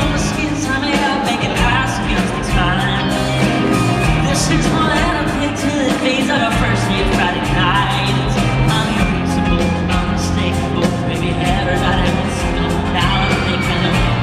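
Live country-pop band playing loud, with a male lead singer singing over electric guitar, held bass notes and a steady beat, recorded from the audience.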